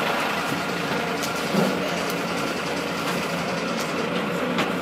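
Livestock lorry's diesel engine idling steadily.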